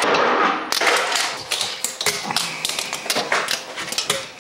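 A fingerboard's deck and wheels tapping and clacking on a wooden board in an irregular run of sharp clicks.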